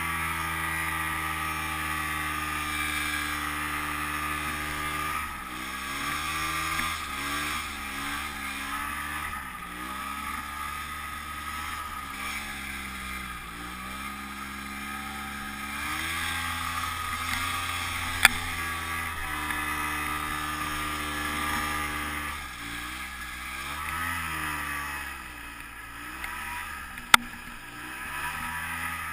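Ski-Doo Tundra snowmobile's two-stroke engine pulling through deep powder, held steady at first and then rising and falling in pitch again and again as the throttle is worked. Two short sharp clicks sound later on.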